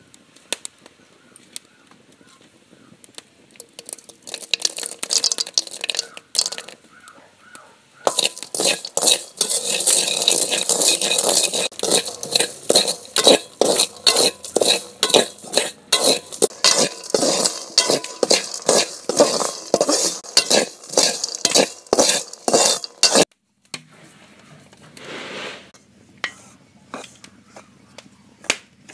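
A metal spoon scraping and knocking in a metal pan full of dry ground meal and peanuts, in quick repeated strokes. The strokes grow loud about eight seconds in, slow to about two a second, and stop abruptly near the three-quarter mark.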